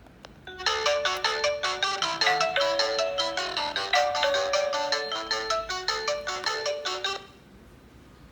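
Video intercom incoming-call ringtone: a quick electronic melody of short notes, playing for about six and a half seconds and cutting off suddenly, as the call from the outdoor station rings through on the Tuya WiFi intercom.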